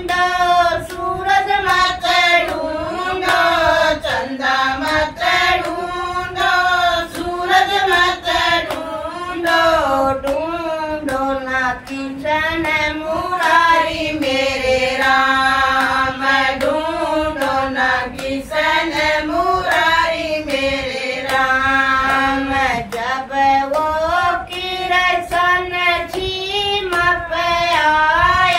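Group of women singing a devotional folk bhajan together, with steady hand clapping keeping the beat.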